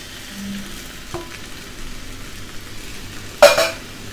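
Pickled mustard greens, egg and glass noodles sizzling in a hot wok, with one loud clank about three and a half seconds in.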